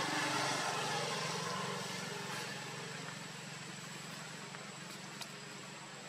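A steady low engine-like drone runs under a background hiss, and the hiss eases off over the first few seconds.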